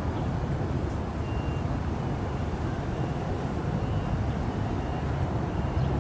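Steady low background rumble, with a few faint, short, high tones scattered through it.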